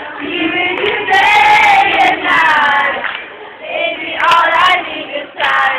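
Several high, young voices singing together in held phrases about a second long, with short breaks between them.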